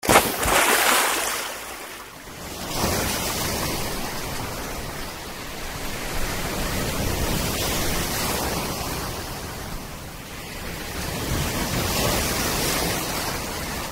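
Sea surf washing and breaking on a shore: a steady rushing hiss that swells, eases and swells again. It is loudest just after the start, dips around two seconds in and again near ten seconds, then builds once more near the end.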